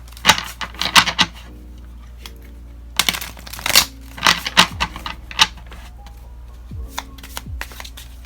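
Tarot cards shuffled by hand in several bursts of rapid clicking, with softer card handling near the end, over soft background music.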